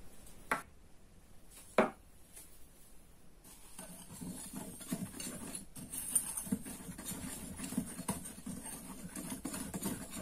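Two sharp taps, then a wire whisk stirring dry flour and sugar in a glass bowl: a quick, scratchy run of strokes against the glass that starts about three and a half seconds in.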